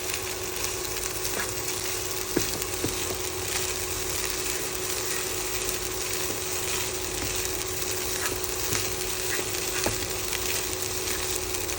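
Food frying in a pan, oil sizzling steadily, with a few light clicks of a utensil against the pan and a faint steady hum beneath.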